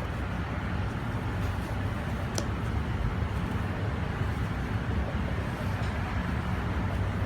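Steady low rumbling background noise like road traffic, with one faint click about two and a half seconds in.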